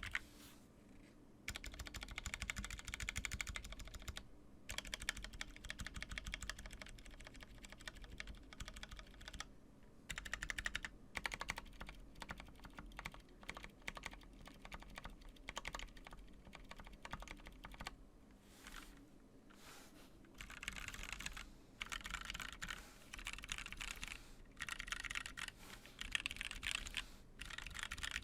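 Typing on a 60% mechanical keyboard with lubed Zealios V1 tactile switches, an aluminium plate and a polycarbonate case: quick runs of keystrokes broken by short pauses.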